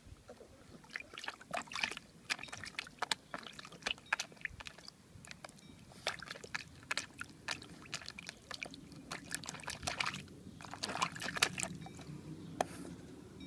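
Bulldog puppy pawing at water in a shallow plastic tub: a run of irregular splashes and sloshes, starting about a second in, with short pauses and a busy stretch near the end.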